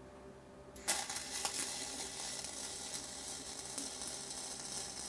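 Flux-core wire-feed welding arc on .045 flux-cored wire striking about a second in with a sharp crack, then running with a steady crackling sizzle as the fill pass is laid on the pipe joint.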